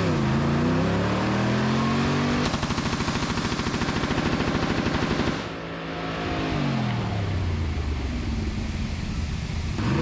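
A car engine revs hard during a burnout. About two and a half seconds in, a machine gun fires one long fully automatic burst, very fast and even, which stops a little past halfway. The engine revs then fall away and it keeps running.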